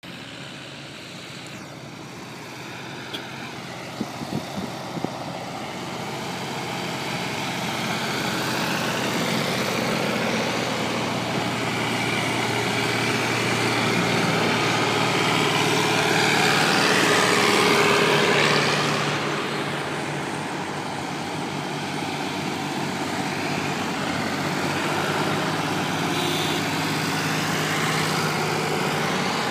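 Tractor engines running as a line of tractors drives past on the road, the sound slowly building to its loudest about 17 to 18 seconds in as one passes closest, then falling away. A few sharp clicks sound about four to five seconds in.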